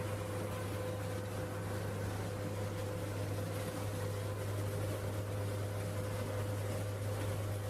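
A steady low mechanical hum with a thin constant higher tone over it and a hiss.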